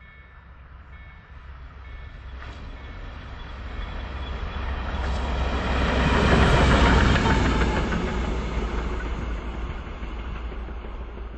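PKP Cargo Service ST48 diesel locomotive running light and passing close by. Its engine drone and wheel noise grow steadily to a peak about six and a half seconds in, then fade as it moves away.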